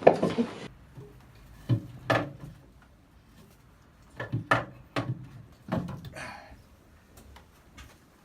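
A series of irregular wooden knocks and clunks, about seven spread over several seconds, as the engine is hauled up out of its wooden engine bay on a rope tackle.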